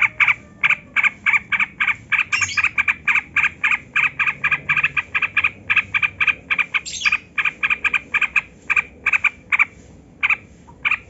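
Yellow-vented bulbul (trucukan) calling in a rapid run of short chattering notes, about five a second, with a couple of brief higher chirps mixed in.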